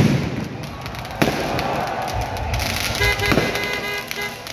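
Aerial firework shells bursting overhead: a sharp bang at the start, another about a second in and a third about three seconds in, over steady crowd noise. A steady tooting tone sounds for about a second near the end.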